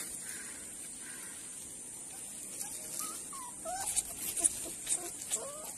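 A dog whimpering in short, high, squeaky glides, starting about halfway through, with a few soft clicks of handling.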